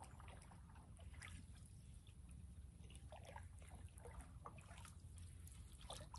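Faint water dripping and trickling around a canoe paddle and hull, in small scattered drips, over a faint low rumble.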